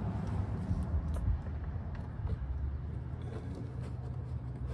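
Handling sounds of a plastic splash guard being pressed against a wheel-well liner: a few faint light taps and rubs over a steady low rumble.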